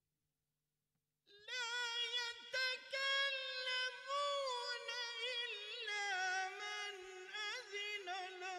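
An unaccompanied high solo voice chanting in long, ornamented held notes, coming in suddenly about a second in after near silence.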